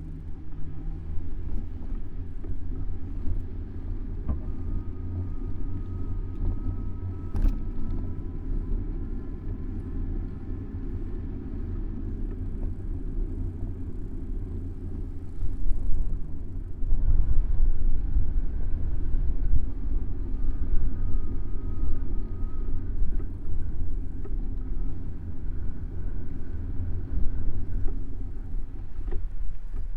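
Steady low rumble of riding, picked up by a camera mounted on a bicycle: wind and road noise, louder from about halfway through, with faint thin tones coming and going.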